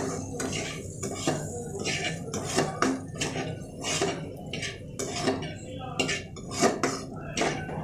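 A utensil scraping and knocking against a pan while stir-frying minced beef, with short clattering strokes about two to three a second.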